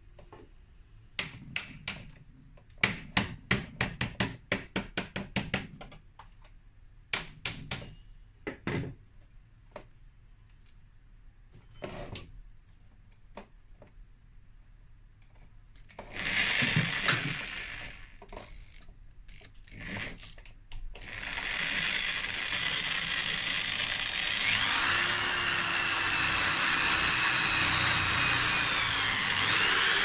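A run of sharp knocks in the first few seconds, a short burst of machine noise in the middle, then an electric power tool running steadily and loudly through the second half, its pitch dipping briefly twice.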